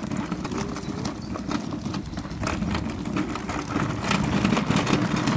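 Footsteps of someone walking, a string of irregular taps, with gusty wind rumbling on the microphone.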